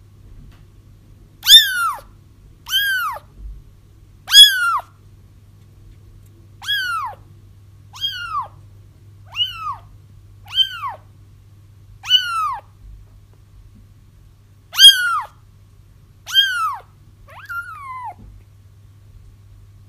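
Kittens crying for their mother: about a dozen short, high mews, each falling in pitch, roughly one a second with a brief pause partway through, over a faint steady low hum.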